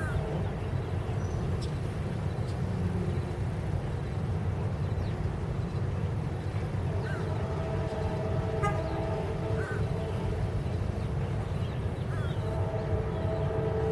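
Two GE AC44CW diesel locomotives hauling a loaded rock train, their engines rumbling low and steady. The locomotive air horn sounds a held chord twice: for about three seconds midway through, and again near the end.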